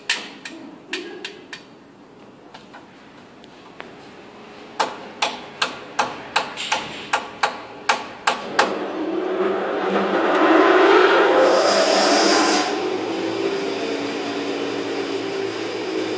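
A plastic toy tool is tapped against a wooden boat hull: a run of sharp, even knocks, about three a second for some four seconds. Then a loud engine-like rushing noise swells up, peaks with a hiss and settles into a steady drone.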